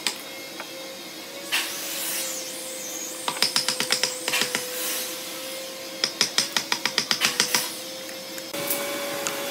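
Two quick runs of scratchy pen strokes on a hardwood slab as cut lines are marked, about seven strokes a second, one about three seconds in and one about six seconds in. A steady machine hum runs underneath.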